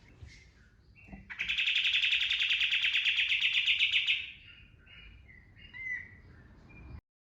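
Kapas tembak songbird singing. Short scattered chirps lead into a loud, very fast trill that lasts about three seconds: the rapid burst that keepers call a "tembakan". Then come a few more short chirps.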